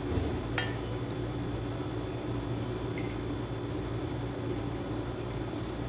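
A few light metallic clicks and clinks as engine valves are handled and slid into their guides in an aluminium cylinder head, over a steady fan-like hum.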